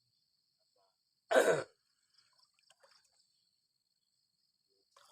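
A person coughs once, a short loud cough about a second in. A faint steady high insect trill runs underneath.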